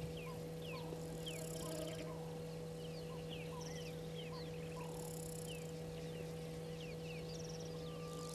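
Several wild birds calling in the bush, with many short, quick downward-sliding chirps overlapping throughout. A steady low hum runs underneath, and brief patches of high hiss come and go.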